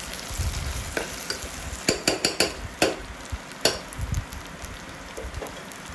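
Sliced onions sizzling as they fry in oil in an aluminium pressure cooker, while a steel spatula stirs them and scrapes and clicks against the pot several times in the first four seconds. The onions are slowly browning and softening.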